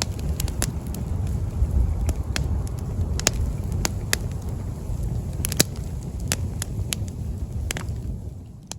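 Wind buffeting the microphone as a steady low rumble, with scattered sharp crackles at irregular intervals.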